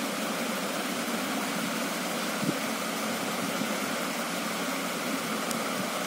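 Steady background hiss, even and unchanging, with a faint tick about two and a half seconds in and another near the end.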